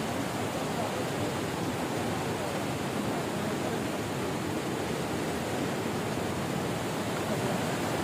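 Steady rush of a stream's flowing water.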